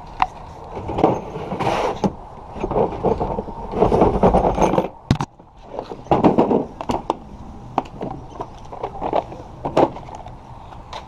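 Hands and tools working on parts over a car battery in an engine bay: irregular sharp clicks and knocks with stretches of rustling and scraping.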